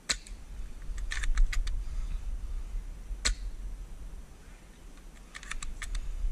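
Airsoft gunfire: a sharp single shot at the start and another about three seconds in, with two quick strings of about six rapid cracks, one about a second in and one near the end.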